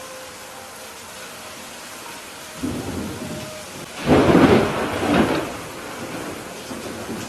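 Steady rain with a thunderstorm: thunder begins rumbling about two and a half seconds in, then a louder peal breaks about four seconds in and rolls away over the next two seconds.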